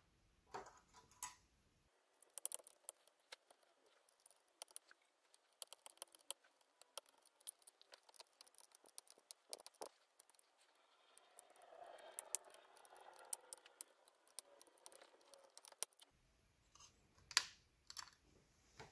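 Faint, scattered small clicks and ticks, with a soft scraping from about eleven seconds in, as the thin metal EM shield is worked and pried off a tablet's motherboard with fingers and tweezers.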